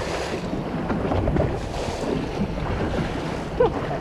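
Wind buffeting the microphone over the steady wash of the sea around a boat, a continuous rumbling noise with no clear rhythm.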